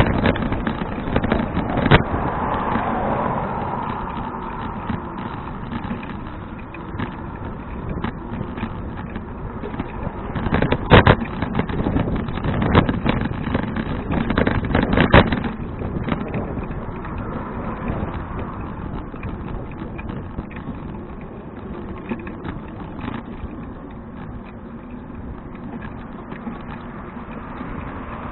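Bicycle in motion: a steady rumble of tyres and wind, with frequent knocks and rattles from bumps. A louder cluster of clattering knocks comes about eleven to fifteen seconds in.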